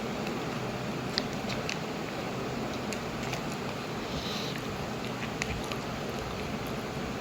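A person chewing a burger and chaat close to the microphone: irregular soft wet clicks and smacks of the mouth, over a steady background hiss.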